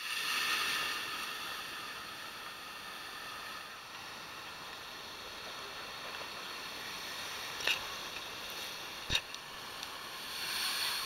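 Steady rushing noise of ocean surf breaking on rocky shore, mixed with wind, swelling near the end. Two sharp knocks, the loudest moments, come in the second half.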